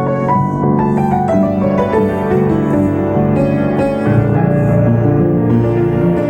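Piano playing a slow worship song arrangement, with sustained chords and a moving melody.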